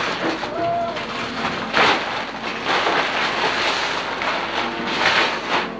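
Tissue paper and a cardboard gift box rustling and crinkling as a present is unwrapped. There are louder crackles about two seconds in and twice near the end, over a faint steady hum.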